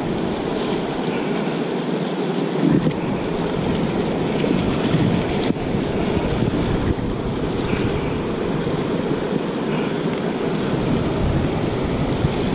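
Shallow river water rushing steadily around a wader's legs. From about three seconds in, a low rumble of wind buffets the microphone.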